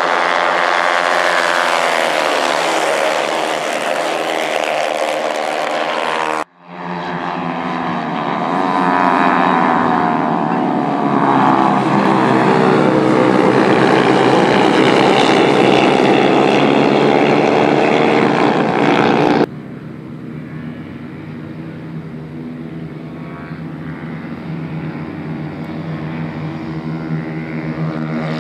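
A pack of 110 cc racing motorcycles running at high revs, their engine notes rising and falling in pitch as they accelerate and pass. The sound breaks off abruptly and resumes about six and a half seconds in, then drops suddenly to a quieter, steadier engine sound about nineteen seconds in.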